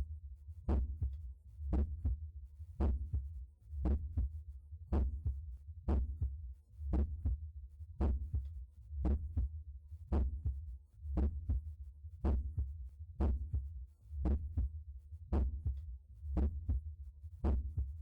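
Heart sounds auscultated over the tricuspid area: a steady, regular heartbeat of sharp beats, about one a second.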